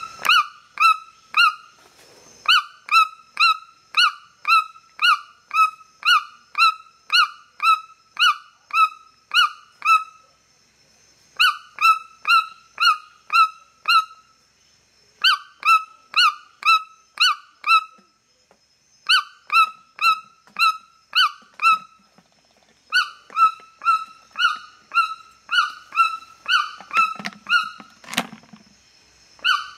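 White-throated toucan giving its yelping call over and over, short falling notes at about one and a half a second, in runs broken by short pauses. Near the end there is a single sharp clack with a low knock, as a toucan's bill strikes the plastic lid of a compost bucket.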